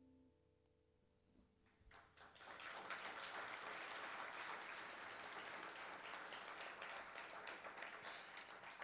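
Audience applauding: after about two seconds of near silence a few scattered claps, then dense steady clapping that tapers off near the end.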